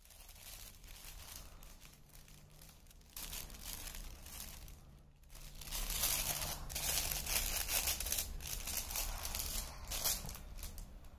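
Crinkle paper inside the fabric pages of a soft cloth baby book crackling as hands squeeze and rub the pages, in an irregular run of crackles that grows loudest a little past the middle.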